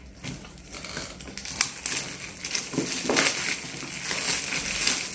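Packaging wrap being pulled off and handled: crinkling and rustling with sharp crackles, sparse at first and busier from about a second and a half in.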